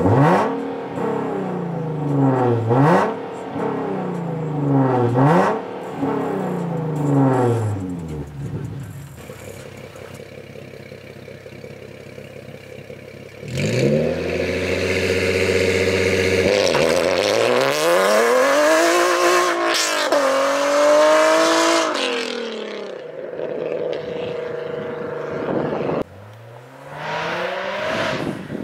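Nissan 370Z Nismo's 3.7-litre VQ37VHR V6 through a Tomei Expreme Ti titanium cat-back exhaust with Invidia test pipes: four quick free-revs that each snap up and fall back, then a steady idle. About 14 s in the engine is held at a steady launch rpm, then climbs through two gears with a brief drop between them as the car pulls away and fades out. Near the end the car is heard again approaching from a distance, its note rising.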